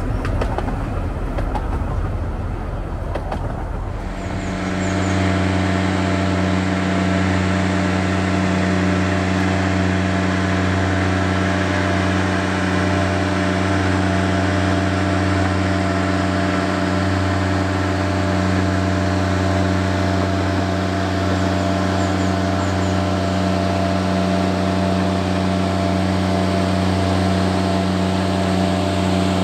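Narrow-gauge carriages rumbling along the track, then after about four seconds a small diesel locomotive's engine running at a steady, even hum as it approaches.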